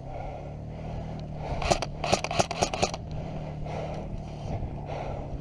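Footsteps on dry ground at an even pace, with a quick run of about eight sharp clicks from an airsoft gun firing about a second and a half in.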